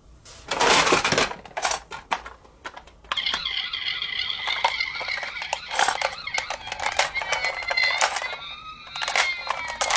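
Toy ambulance's electronic siren sounding from about three seconds in: a steady high tone with rising and falling sweeps near the end. Under it, a rattle of plastic toy cars being moved in a cardboard box at the start and clicks of the toys being handled throughout.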